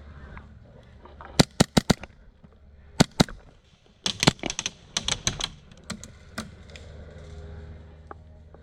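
Airsoft guns firing in short strings of sharp cracks. About five quick shots come a little over a second in and two more around three seconds. A ragged cluster of shots follows between about four and six and a half seconds.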